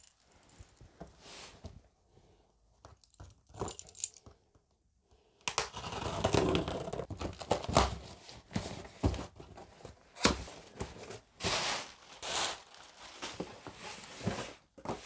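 Packing tape being cut and torn from a cardboard shipping box, the flaps pulled open and paper packing crumpled as it is pulled out. The first few seconds hold only faint scratching at the tape; from about five seconds in come steady tearing and rustling with sharp rips.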